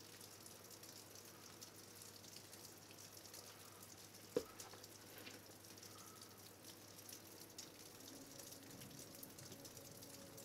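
Near silence: faint crackling room tone with one sharp knock about four seconds in. Soft music comes in near the end.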